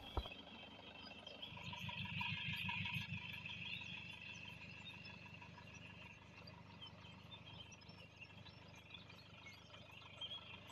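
Faint rural outdoor ambience: high-pitched chirping of wildlife, loudest about two seconds in, with a low rumble underneath at the same time.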